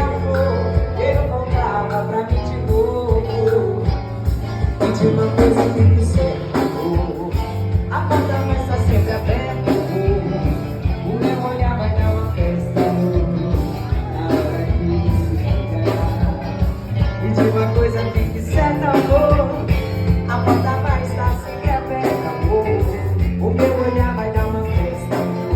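Upbeat song with singing over guitar, bass and a steady beat.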